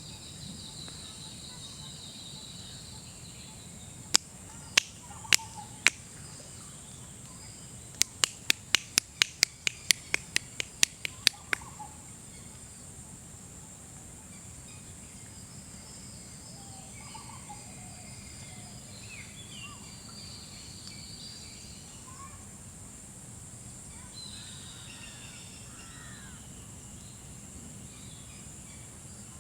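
Birds calling here and there over a steady high insect drone. Partway through come loud, sharp clicks: four spaced about half a second apart, then a quick run of about a dozen.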